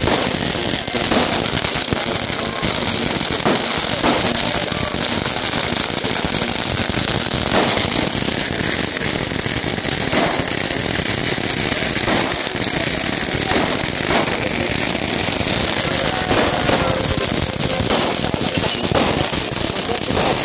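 Many small firecrackers crackling and popping on the road without a break, with louder single bangs every second or two.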